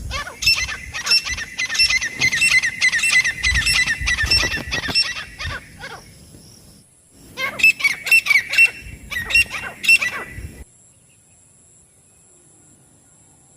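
Francolin (teetar) calling: a rapid series of shrill, repeated notes for about five and a half seconds, then two shorter bouts, stopping abruptly about ten and a half seconds in.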